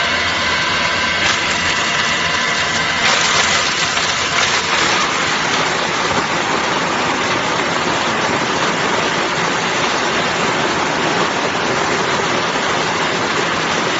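Coconut grating machine running and grinding coconut meat: a loud, steady machine noise from its motor and grating drum. A faint steady tone in the noise fades about three seconds in, leaving an even rushing grind.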